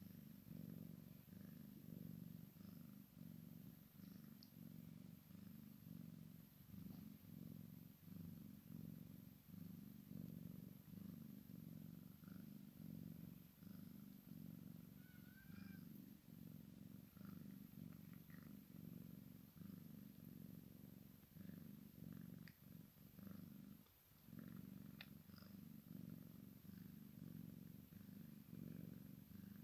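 Cat purring softly in a steady low rhythm, with a brief break near the end.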